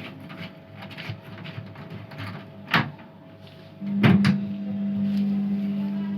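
Plastic clicks and knocks of a washing machine part being handled and fitted back. About four seconds in, a steady low hum starts and keeps going.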